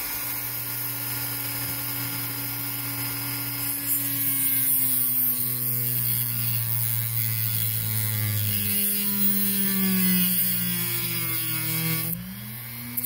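Dremel rotary tool with a small cutoff wheel running and cutting a slot into the head of a stuck screw. Its whine drifts slowly lower in pitch, dips briefly near the end and comes back up.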